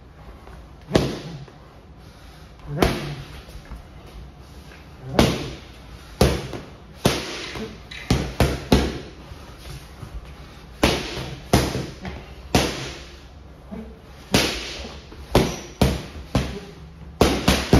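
Boxing gloves punching padded focus mitts: sharp smacks, some single and some in quick combinations of two to four, a second or two apart, each with a short echo.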